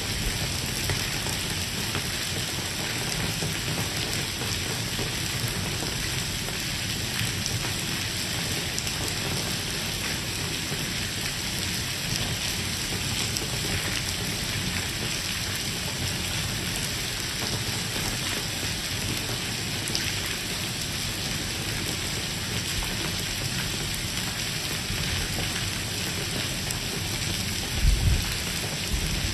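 Heavy rain pouring steadily onto stone paving, with water running over the street surface. A brief low thump near the end.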